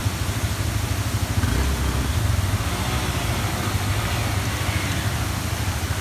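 Motorcycle engines running at low revs as the bikes ride slowly through a shallow muddy stream crossing on a rocky trail, over a steady low rumble.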